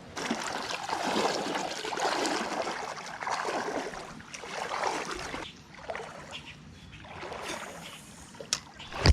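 Creek water sloshing and swishing around wading legs in uneven surges, louder for the first five seconds and softer after, with a sharp knock near the end.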